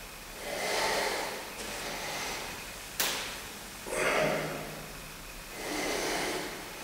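Heavy, forceful breathing of a man straining through hanging leg raises on a pull-up bar: several breaths, each about half a second long. There is one sharp click about three seconds in.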